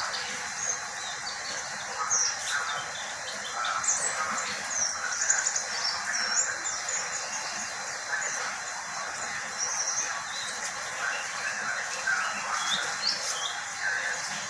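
Pet white-eye (pleci) chirping and twittering: quick, short, high notes that slide up and down, coming in a steady run over a background hiss.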